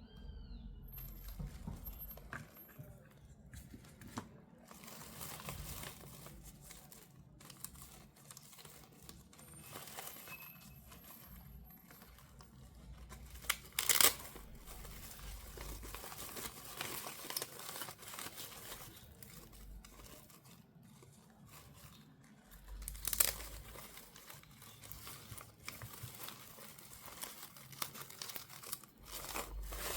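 Toy packaging being crinkled and torn open by hand during a doll unboxing, a continuous crackling with two short, louder rips, one about halfway through and one about three-quarters of the way through.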